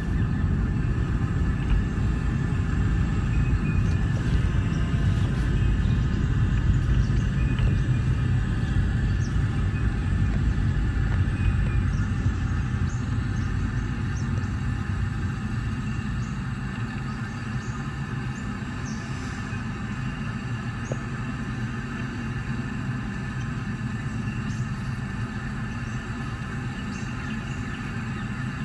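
Car interior noise from a moving car: a steady low engine and road rumble that grows somewhat quieter about halfway through.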